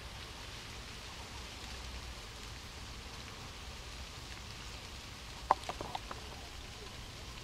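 Steady outdoor background hiss with a low rumble underneath. About five and a half seconds in, a quick run of four sharp clicks, the first much the loudest.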